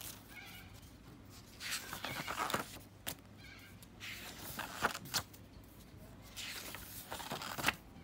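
Paper pages of a spiral-bound sketchbook being turned by hand, rustling in about three short bursts.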